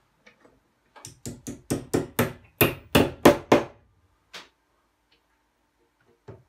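A hammer striking the last two fixings into a wooden gallery rail's metal brackets: about a dozen quick blows, roughly four a second, growing louder, then one lighter tap a second later. More blows start near the end.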